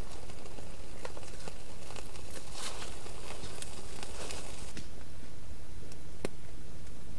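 Small twigs rustling and crackling as they are piled over a freshly lit tinder bundle, busiest around the middle, with a few sharp snaps as the kindling catches. A steady low rumble runs underneath.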